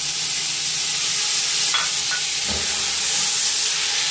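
Chopped green onions frying in hot oil in an aluminium pot, a steady sizzle as a spatula stirs them.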